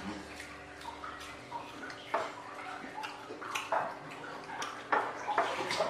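Scattered small clicks and clinks of people eating at a table: plates, glasses and a spoon in the serving bowl being handled, over a faint steady hum.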